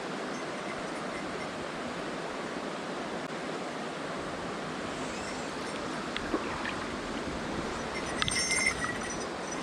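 Mountain stream flowing steadily, an even rush of water, with a single click about six seconds in and a short burst of clicking and rattling near the end.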